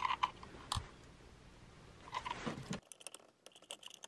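Plastic clicks and light scraping as an electrical cable is pushed into the port of a blue plastic remodel electrical box and the box is handled, with a run of sharp clicks in the first second and a few more near the middle.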